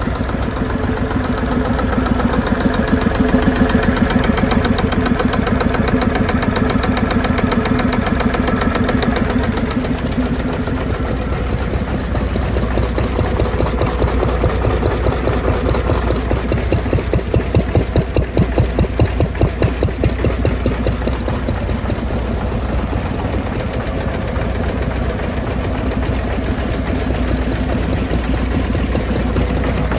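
Vintage stationary engines running in the open. From about a third of the way in, a Lister D single-cylinder engine's firing beats come through, evenly spaced and steady.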